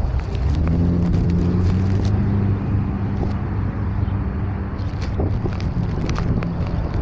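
Street traffic: a nearby motor vehicle's engine running with a steady low hum, with scattered light clicks over it.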